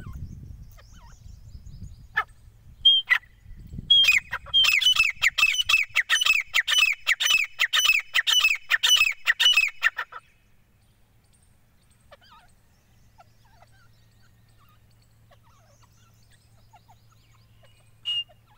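Male grey francolin calling: a couple of single sharp notes, then a fast run of loud repeated notes, about three to four a second and each falling in pitch, for some six seconds, and one more short note near the end.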